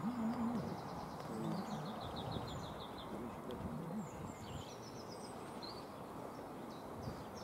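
Class 55 Deltic diesel locomotive approaching in the distance, its twin Napier Deltic two-stroke engines heard as a faint, steady drone, with birds chirping over it.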